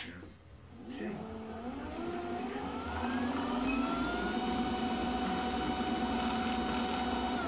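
A Unimat SL lathe's 24-volt electric scooter motor and belt-driven spindle starting up: a click as it is switched on, then a whine that rises in pitch as the chuck speeds up over about three seconds, after which it runs at a steady speed.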